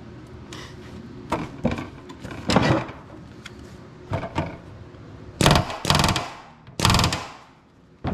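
Pneumatic blind-rivet tool setting rivets in the aluminium skin of an aircraft ski: several short bursts of the air tool, the two loudest about five and a half and seven seconds in, with rattles and knocks of the tool against the sheet metal between them.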